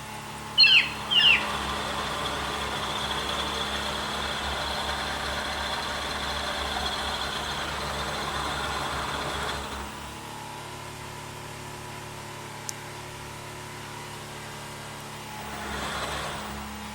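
NGF-110 milling machine running from a frequency converter, with a steady electric hum. About half a second in there are two short, loud screeches, then a louder whirring with a high whine for about nine seconds. After that it drops back to a quieter steady hum, with a brief swell near the end.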